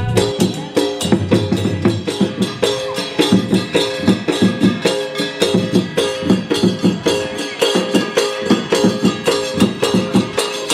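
Instrumental Odia folk dance music for Danda Nacha: fast, even drumming at about four to five strokes a second under a short repeating tune.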